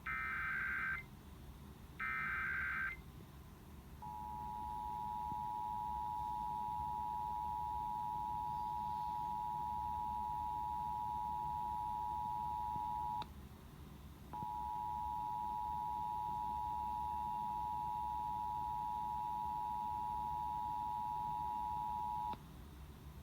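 Emergency Alert System tones relayed over FM radio for a Required Monthly Test. The last two of the three SAME digital header bursts, each about a second long, come first. About a second later the steady two-tone attention signal (853 and 960 Hz) begins; it is broken by a click and a gap of about a second about 13 seconds in, then resumes and stops about 22 seconds in.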